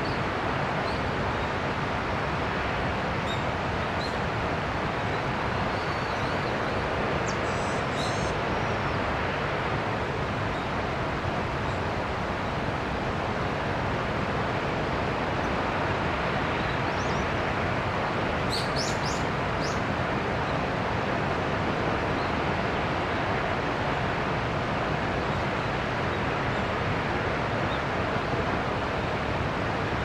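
Senpiro Falls, a tall waterfall heard from across the valley, rushing as a steady, even roar. Brief bird chirps come about 8 seconds in and a louder cluster just past the middle.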